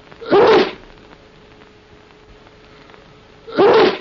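A person sneezing twice, about three seconds apart, each a short loud sneeze.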